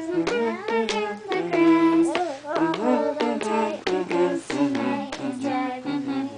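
Singing: voices carrying a tune with held and sliding notes, broken by a few sharp clicks.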